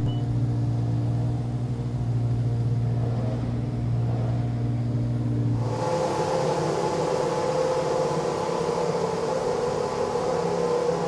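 Racing car engine idling steadily at an even, low note. About six seconds in, the sound cuts to a different steady engine note, higher and hissier.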